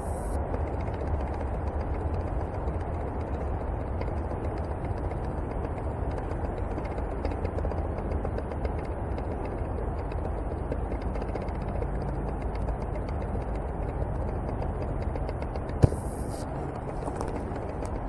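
Steady low rumbling noise, typical of handling and wind noise on a handheld camera's microphone while it is carried about, with one sharp click near the end.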